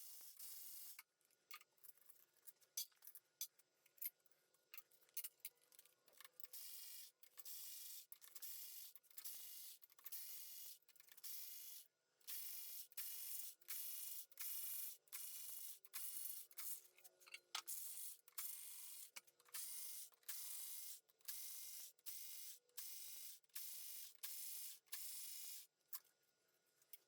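Hand ratchet wrench being worked back and forth, a run of faint clicking strokes about once a second as a bolt is turned out.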